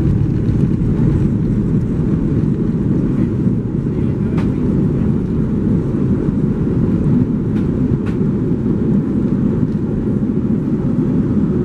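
Airbus A330-343 cabin noise during the landing rollout: a loud, steady low rumble of the engines and the wheels on the runway, heard from a window seat over the wing. A few light clicks sound in the middle.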